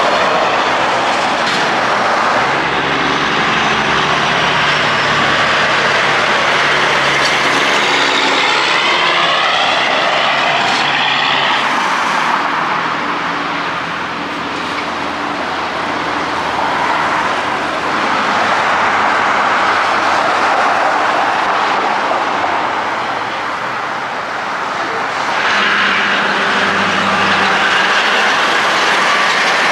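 Road traffic passing: diesel semi trucks and cars going by. A big-rig engine pulls away at the start, and another truck's engine rises near the end.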